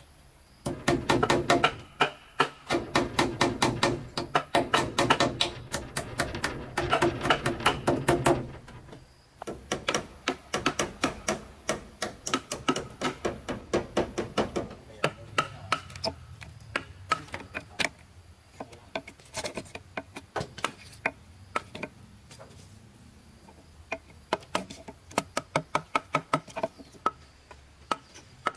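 Fast, repeated knocks of hand tools striking wood, several a second. They are densest for the first fifteen seconds or so, then thin out to scattered blows.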